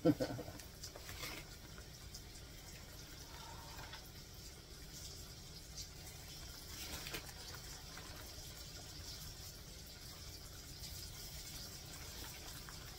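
Flour-coated mushroom halves sizzling steadily in hot oil in a frying pan, with a couple of faint brief sounds as more pieces are set in.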